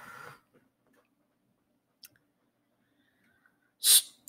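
Near silence, broken by a short soft rush at the start, a faint click about two seconds in, and a louder short hiss near the end.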